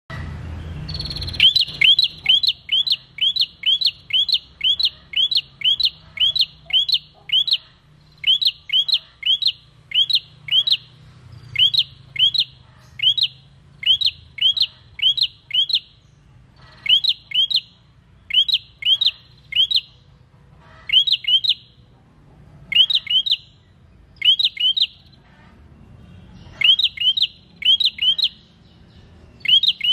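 Caged prenjak, a rufous-headed tailorbird, singing a long series of high, downward-slurred chirps at about two a second, in runs broken by short pauses.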